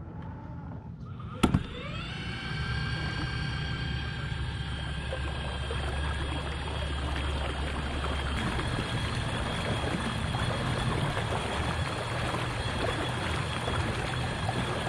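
Kayak's drive starting with a click about a second and a half in, rising quickly in pitch and then running with a steady whine as the kayak moves off, over the rush of water along the hull.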